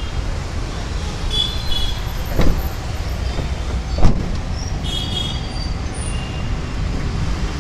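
Steady street traffic noise, with two sharp knocks about two and a half and four seconds in, the second louder.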